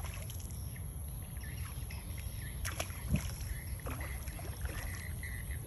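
A hooked fish splashing at the river surface where the fishing line enters the water, with a couple of brief splashes about two and a half and three seconds in, over a steady low rumble.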